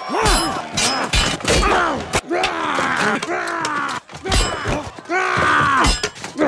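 A rapid string of short human grunts and groans from different actors, spliced back to back with abrupt cuts, roughly two a second. Some come with a dull thud or blow under them.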